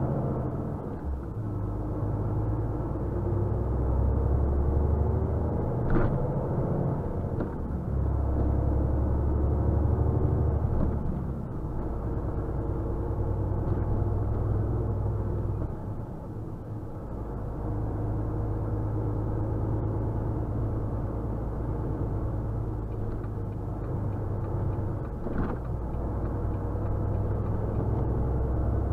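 Truck engine and road noise heard inside the cab while driving in town traffic: a steady low rumble that eases off twice, about twelve and sixteen seconds in, then picks up again. Two short clicks, one about six seconds in and one near the end.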